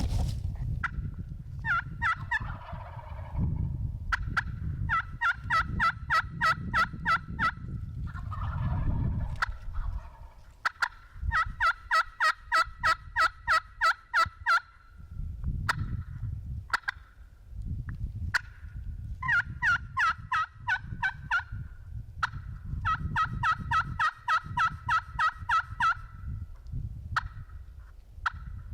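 Turkey calling: four runs of fast, evenly spaced yelp-like notes, each lasting a few seconds, with a low rumble of movement underneath.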